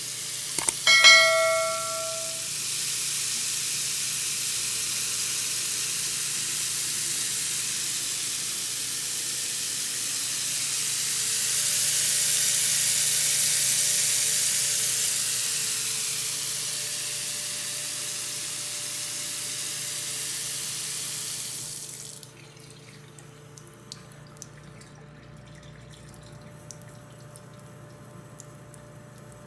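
Tap water running steadily into a sink, swelling a little in the middle, then shut off suddenly about two-thirds of the way through, leaving faint scattered drips.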